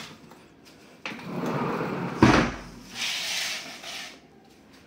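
Plastic vacuum-cleaner attachments being handled and fitted together: a sliding, rubbing scrape, a sharp knock about two seconds in, then another brief scrape. The vacuum itself is not running.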